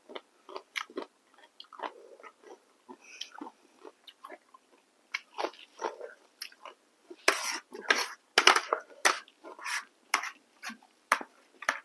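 Close-miked chewing and mouth sounds of someone eating momos and spicy noodles, a run of short wet clicks. About seven to ten seconds in come louder clicks and scrapes as a metal spoon scoops noodles off the plate.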